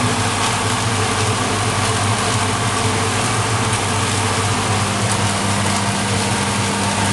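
Polyurethane foam shredder running steadily: a constant electric-motor hum under an even rushing whir from the spinning shredding chamber.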